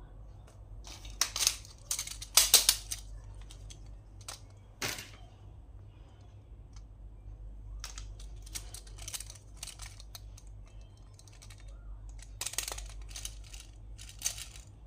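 Hands unwrapping and handling small plastic toys and their packaging, making irregular bursts of crinkling and clicking. The bursts are loudest between about one and three seconds in and again near the end.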